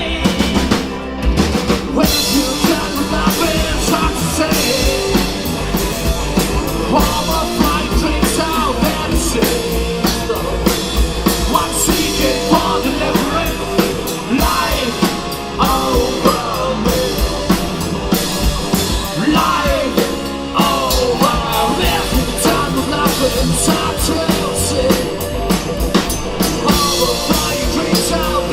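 Rock band playing live, with a fast drum-kit beat under bass and guitars, in a punk-rock style.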